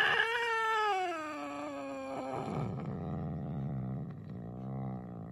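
Black-and-white domestic cat giving one long, drawn-out meow that falls in pitch over about two seconds, then trailing into a lower, quieter moaning sound. It is the demanding call of a cat that wants to be let outside.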